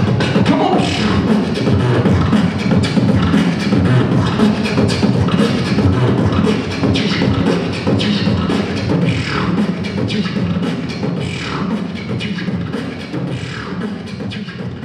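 Beatboxing into a handheld microphone: a fast, dense stream of vocal drum beats and clicks over a deep bass line, with sweeping vocal effects every couple of seconds from about halfway through, easing off in loudness near the end.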